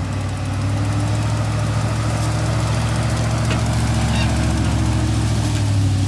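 Pickup truck engine running steadily under load as it pulls a trailer heaped with cut corn stalks through a muddy field. The engine gets a little louder about a second in.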